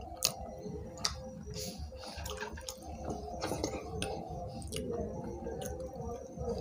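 Eating by hand: chewing and mouth smacks, with fingers working rice on plates. Several sharp clicks stand out, the loudest about a quarter second in.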